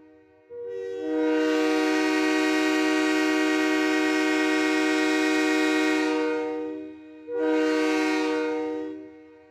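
Train air horn sounding a chord of several notes: a long blast of about six seconds, its notes coming in one after another at the start, then a short blast near the end.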